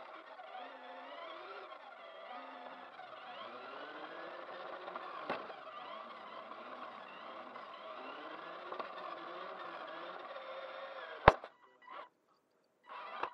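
Kyosho Mini-Z Overland Hummer RC car's small electric motor and gears whining, the pitch rising and falling again and again as the throttle is worked. A knock about five seconds in; a sharp, loud click about eleven seconds in, after which the whine cuts out with only brief bits of sound.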